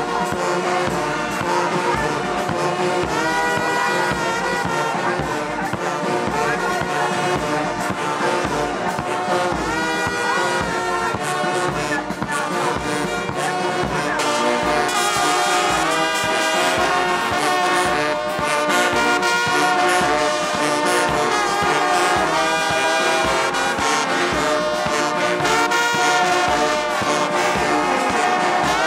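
Brass marching band playing a march, with euphoniums and trombones carrying the tune over a steady drum beat of about two strokes a second.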